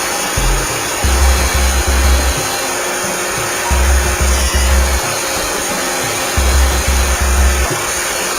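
iRobot Roomba 620 robot vacuum running with a steady whirring hiss from its vacuum motor and brushes. Over it, background music with a deep bass beat that comes in groups of three pulses, repeating every couple of seconds.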